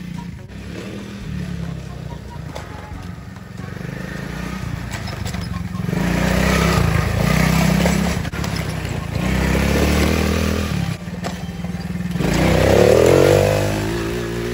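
Small youth ATV's engine running and revving as it is ridden over grass, swelling louder in three surges in the second half as it passes close, with a rise and fall in pitch near the end.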